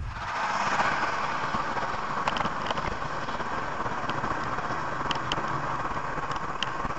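Steady road and wind noise of a car cruising on a highway, heard from inside the cabin through a dashcam, with a few faint clicks.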